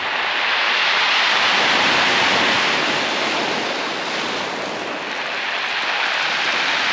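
Small waves breaking and washing over a shingle beach in a steady hiss of surf and pebbles. The wash swells in the first seconds, eases past the middle and builds again near the end.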